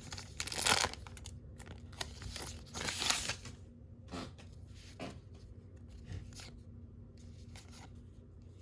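A 2019 Topps Heritage High Number baseball card pack wrapper being torn open with crinkling rustles over the first three seconds or so. After that come a few soft clicks as the cards are handled.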